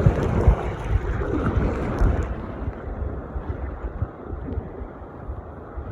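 Rushing river water around a paddle raft, with wind buffeting the microphone; louder for the first couple of seconds, then easing off.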